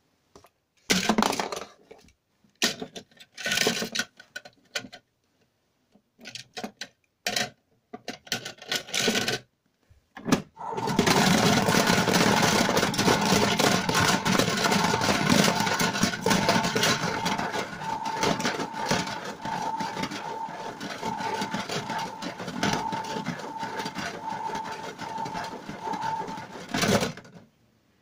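Casdon Washmatic toy washing machine running: its small battery motor turns the plastic drum with a steady whirr while a toy car tumbles and rattles inside, then it stops suddenly near the end. Before it starts, a few seconds of scattered plastic knocks and clatter.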